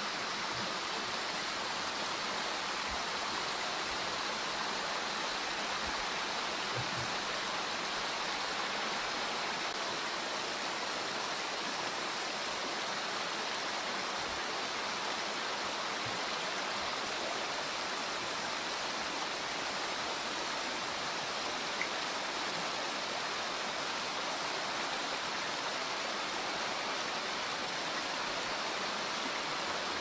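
A pondless waterfall with water spilling steadily over stone ledges and running through a shallow rocky stream bed.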